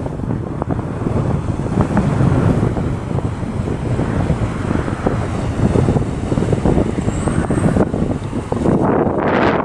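Strong wind buffeting the microphone: a loud, steady low rumble, with a brief louder rush near the end.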